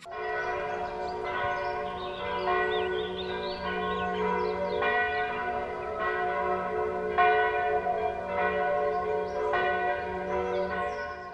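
Church bells ringing, with fresh strikes roughly every second and each ring hanging on to overlap the next.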